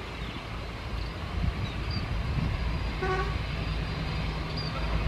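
Road vehicles passing close by with a low engine rumble, and a vehicle horn giving one short toot about three seconds in.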